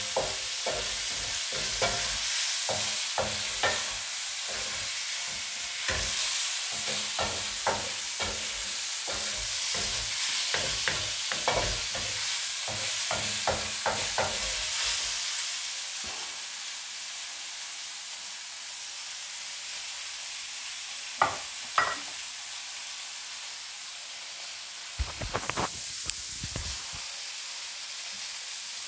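Tofu slices sizzling in hot oil with garlic and onion in a metal wok, a wooden spatula scraping and clacking against the wok in quick strokes for about the first half. After that the sizzling goes on steadily, broken by a couple of spatula knocks and a short clatter near the end.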